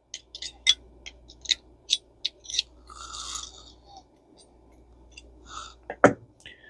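Small metal parts of a Garcia Mitchell 410 spinning reel's rotor being worked with a tool: scattered light clicks, a brief scrape about three seconds in and a sharper click near the end, as a plate is eased loose.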